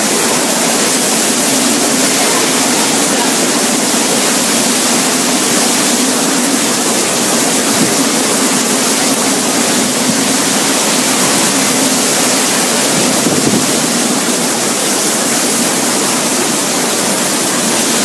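Hurricane-force wind and driving rain: a loud, steady rush of noise with a low drone underneath, holding level without letting up.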